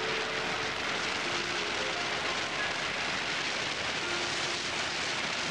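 Steady rushing hiss of wind and road noise on the microphone of a moving motorcycle, with faint slow string-quartet notes held over it.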